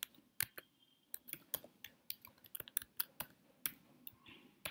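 Typing on a computer keyboard: quick, irregular keystrokes, several a second.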